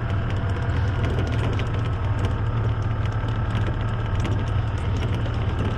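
Golf cart running, a steady low hum with many light rattling clicks.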